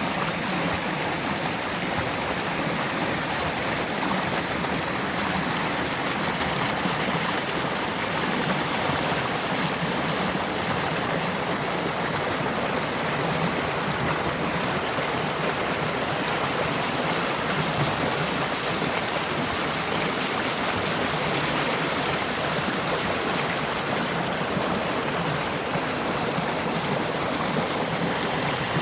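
Stream flowing: a steady, even rush of running water.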